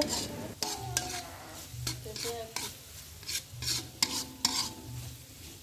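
Metal spatula scraping and stirring spice paste as it sizzles in a wok, in uneven strokes about twice a second. The ground spice paste, with chillies, is being sautéed until fragrant.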